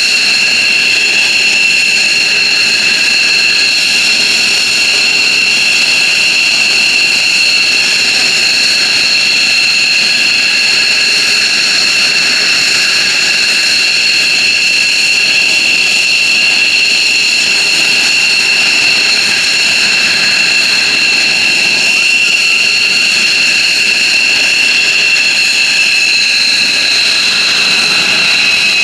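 F-15J Eagle's twin Pratt & Whitney F100 turbofan engines running steadily at ground idle, a loud jet whine with several high tones held level over a rushing noise.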